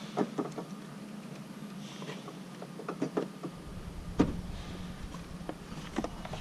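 Scattered light clicks and knocks of an LED headlight bulb and its plastic fittings being handled and worked into the headlight housing, over a faint steady hum; a low rumble comes in about halfway through.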